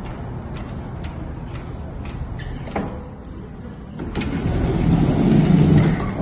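A bee buzzing, a low steady drone that grows louder about four seconds in, as if it comes close to the microphone, then fades near the end.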